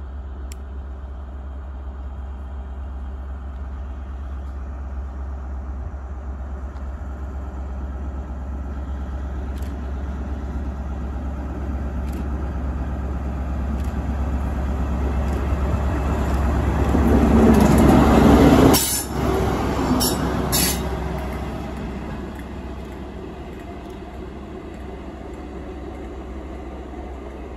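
Class 43 HST power car running light, its diesel engine growing steadily louder as it approaches and is loudest about two-thirds through. The sound then breaks off sharply and fades as the locomotive draws away.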